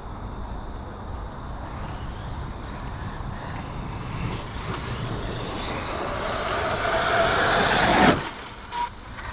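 Outcast 8S RC truck's 1100kV brushless motor and drivetrain whining, rising steadily in pitch and loudness as it accelerates for about six seconds, then cutting off abruptly near the end.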